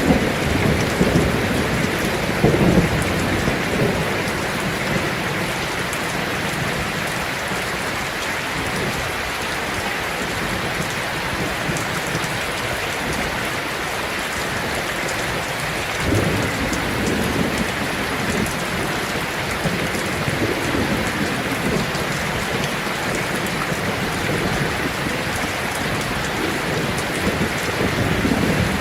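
Heavy rain falling on a tin roof, a steady dense hiss, with low rolls of thunder near the start and again about halfway through.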